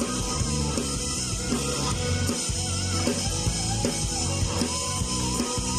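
Rock band playing an instrumental passage between sung lines: drum kit keeping a steady beat under guitar.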